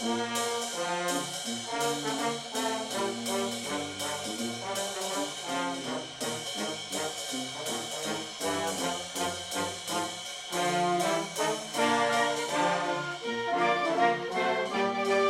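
Upbeat brass-band theme music, trombones and trumpets playing over a steady drum beat, getting a little louder about two-thirds of the way through.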